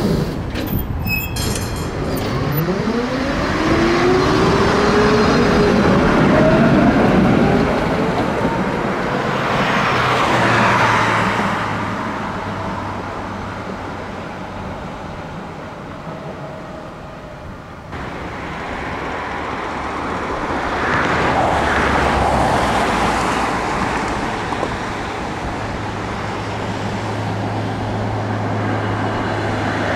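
City street traffic on a tram route, with vehicles passing. A motor whine falls in pitch right at the start and then climbs again over the next several seconds as a vehicle pulls away, and a steady low hum comes and goes later.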